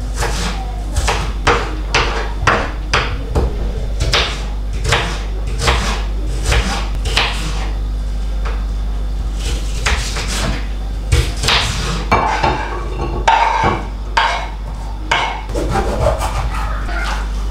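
Kitchen knife chopping onion on a bamboo cutting board: a run of irregular knocks of the blade against the wood, a few a second, with some scraping of the pieces across the board.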